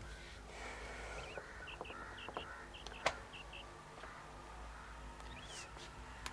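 Faint birds chirping over quiet outdoor ambience, with a short run of small chirps about two seconds in and a single sharp click about three seconds in.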